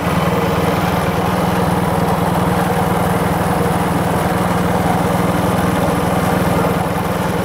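Hero Honda Glamour's single-cylinder four-stroke engine running steadily, with an even, unbroken beat, while the bike runs on a measured last bit of petrol for a mileage test.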